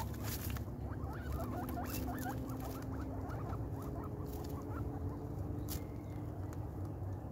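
Young guinea pigs squeaking in a quick series of short rising notes, about three or four a second, which stop about five seconds in. Scattered sharp clicks of pellets being crunched as they eat, over a steady low rumble.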